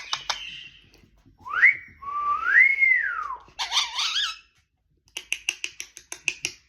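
Indian ringneck parakeet whistling: a short rising whistle, then a longer whistle that climbs and falls back. Before and after it come bursts of rapid, clicky chatter.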